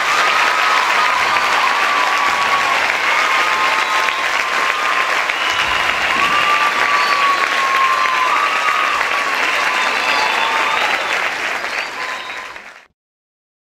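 Large audience applauding steadily, with a few drawn-out high tones over the clapping. The applause fades and stops near the end.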